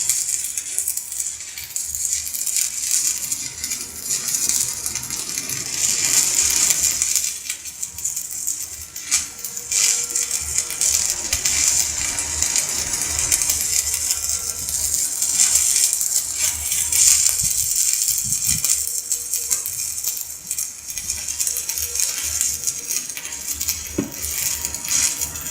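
Electric stick-welding arc crackling and sizzling as a welding-rod electrode burns against the steel. The crackle swells and dips through the run.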